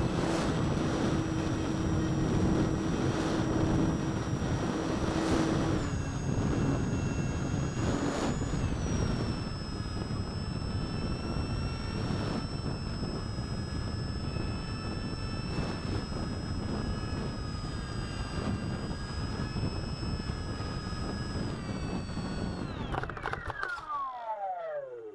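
An FT Flier RC plane's electric motor and propeller running hard, heard from the onboard camera with heavy wind buffeting on the microphone; the motor whine steps down in pitch twice early on as the throttle changes. Near the end the whine falls steeply and fades as the motor is cut and the propeller spins down.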